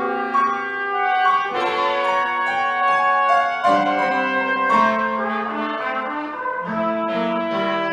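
Contemporary chamber music for trumpet, clarinet and piano: the trumpet and clarinet hold long overlapping notes that shift pitch every second or so, with a few sharp piano-like attacks among them.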